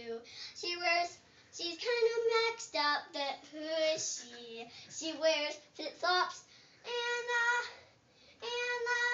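A young girl singing an improvised tune on her own, unaccompanied, in short phrases with brief pauses, ending on two long held notes.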